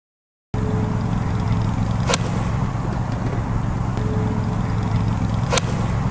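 Two crisp clicks of a golf club striking a ball off grass, about three and a half seconds apart, over a steady low rumble that starts about half a second in.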